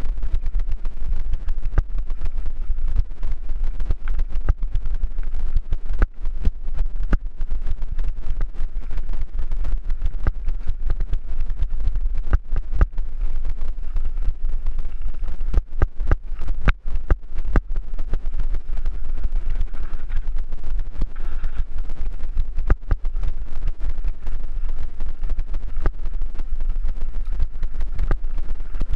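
Mountain bike rolling fast downhill over loose gravel: steady wind rumble on the helmet-mounted microphone, with frequent irregular clatter and knocks from the tyres on stones and the bike rattling.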